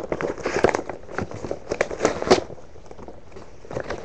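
Hands handling a hard plastic toy: a quick run of clicks and rattles over the first two and a half seconds, then a few scattered clicks.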